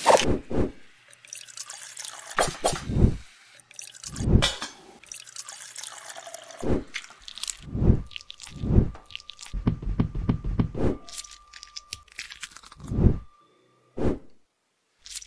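A string of separate wet plops and drips, about one a second, from food being cooked and handled: pork pieces in a hot pan and mashed potato spooned onto a plate.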